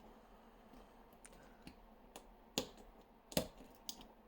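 Small, sharp metal clicks and taps as an Inaho Tierkey lock core is taken apart by hand, the side cover being worked off: about seven clicks, with two louder knocks about two and a half and three and a half seconds in.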